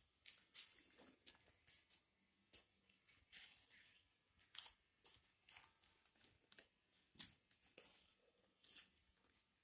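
Swiftlets inside a swiftlet house giving faint, short, scratchy chirps and clicks at irregular intervals, a sign that birds are roosting in the house.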